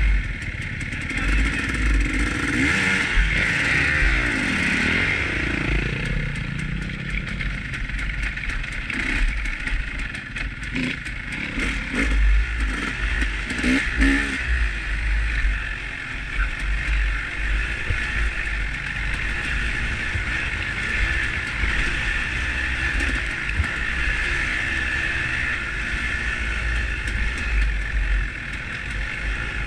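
Off-road motorcycle engine running and revving while riding a rocky dirt trail, with heavy wind buffeting the microphone. Engine pitch rises and falls in the first few seconds as other dirt bikes ride near, and there are a few sharp clatters around the middle.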